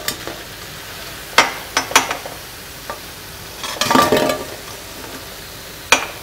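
Urad dal vadas frying in hot oil with a steady sizzle. Over it come several short bursts of a metal utensil scraping and clinking against the pan as the vadas are lifted out: about a second and a half in, at two seconds, around four seconds and near the end.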